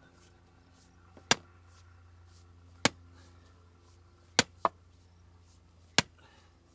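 Sledgehammer striking a steel rebar ground rod, driving it into hard-packed clay: four sharp metallic clanks about a second and a half apart, the third followed quickly by a lighter second hit.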